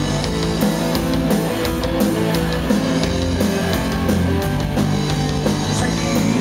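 Live rock band playing: electric guitar over a drum kit keeping a steady beat with cymbal hits.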